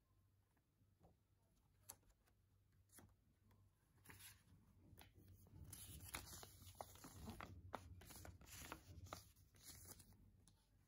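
Faint rustling and crinkling of a clear plastic film and paper backing sheets being handled, with a few small clicks. It grows busier and louder from about four seconds in.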